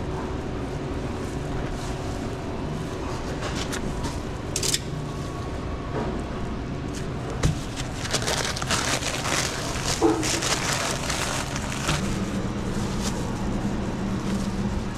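Crinkling, crackling handling noises and light clicks from work at a sandwich counter, busiest between about eight and twelve seconds in, over a steady low hum.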